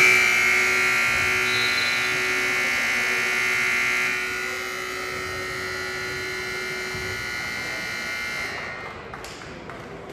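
Gymnasium scoreboard horn sounding one long steady buzz, louder for the first four seconds, then softer until it cuts off near the end. It is the signal that a period of play is over.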